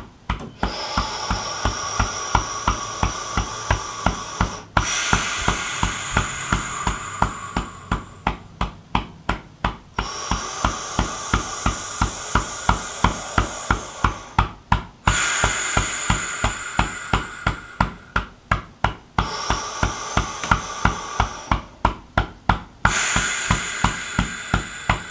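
Fingertips tapping rhythmically on the centre of the chest over the breastbone (the thymus thump), about four to five taps a second. Several slow, deep breaths of a few seconds each run over the tapping.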